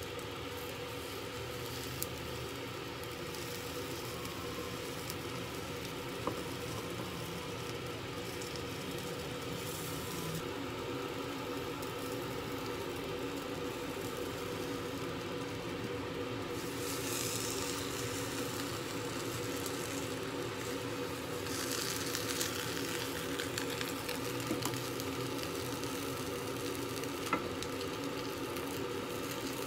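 Egg roll sizzling steadily in a small rectangular tamagoyaki pan over a gas burner, with a few light clicks of the spatula against the pan.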